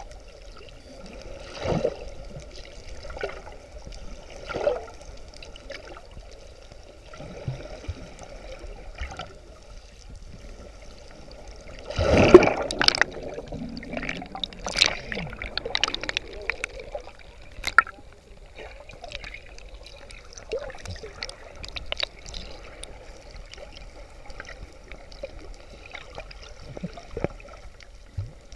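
Sea water heard underwater: bubbling and gurgling with scattered small clicks and pops. A loud burst of bubbling comes about twelve seconds in.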